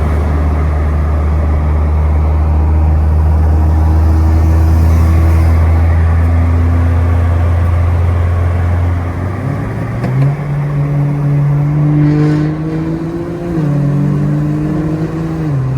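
BMW 335i turbocharged straight-six engine and exhaust under way, loud. It holds a steady low drone for about nine seconds, then its pitch steps up about nine to ten seconds in, and it shifts down again twice near the end.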